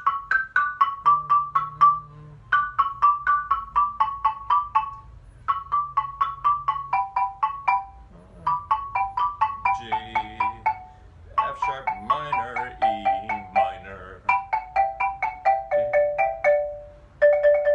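Xylophone played with two mallets: quick runs of single struck notes, about four or five a second, in short phrases that each step down in pitch. The phrases are separated by brief pauses, and each new phrase starts and ends a little lower than the one before.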